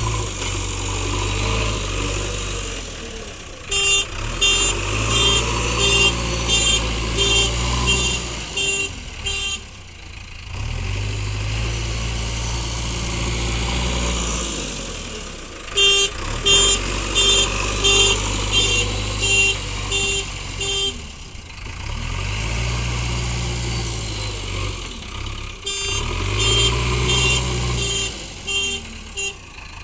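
JCB backhoe loader's diesel engine running under load as it works back and forth. Three times it is joined by a stretch of evenly spaced beeps, about one and a half to two a second, typical of the machine's reversing alarm.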